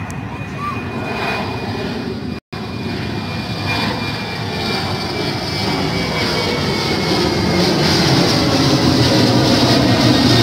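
Jet engines of a Boeing 737 airliner climbing out after takeoff, a steady rushing engine noise that grows louder as the plane comes overhead. The sound cuts out for a split second about two and a half seconds in.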